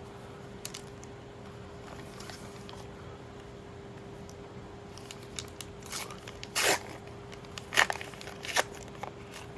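Trading-card booster pack wrappers being torn open and crinkled, a few short, sharp rips, the loudest about two-thirds of the way in and two more soon after, over a faint steady hum.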